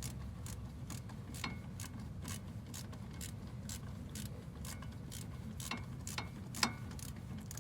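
Socket ratchet clicking in uneven strokes, about two clicks a second, as a 19 mm bolt on a front brake caliper is turned out.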